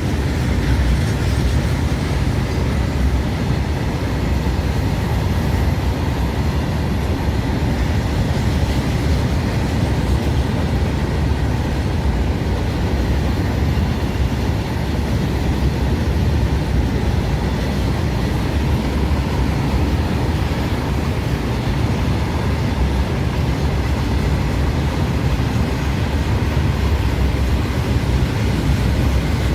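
Freight train behind twin WAG-7 electric locomotives rolling past: a steady, heavy rumble of wheels and wagons on the track.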